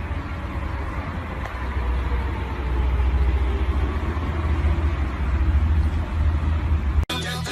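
Steady low rumble with hiss, louder in the middle, that cuts off abruptly near the end; music with a beat starts straight after.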